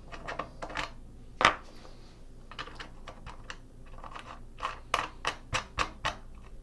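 A series of light clicks and knocks from handling the tap and die tools and the threaded workpiece. There is one louder knock about a second and a half in and a quick run of clicks near the end.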